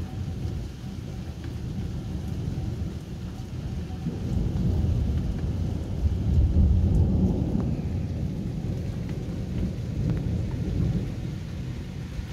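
Rolling thunder rumbling deep and long, swelling to its loudest about halfway through and slowly easing off.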